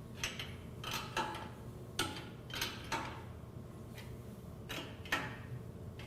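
Wrench tightening the bolts on a meat grinder's housing: irregular sharp metallic clicks and knocks, several a few tenths of a second to a second apart, as the bolts are snugged up.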